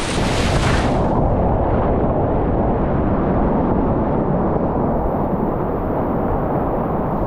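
Whitewater rapids rushing around a kayak, a loud, steady rumble. About a second in, the high hiss drops away and the water sounds muffled, as if water is washing over the camera's microphone.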